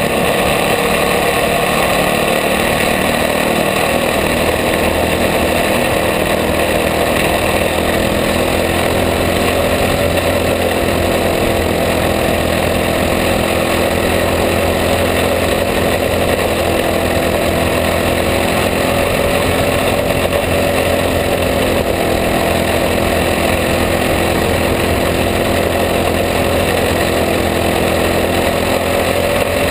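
Onboard sound of a caged racing kart's small engine running hard under way, a loud, steady drone whose pitch rises and falls only slightly.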